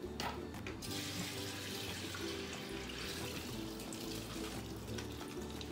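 Wet, soaked glutinous rice poured from a steel bowl into a woven bamboo steaming basket, with its water running off into the metal sink: an even wet hiss starting about a second in, over background music.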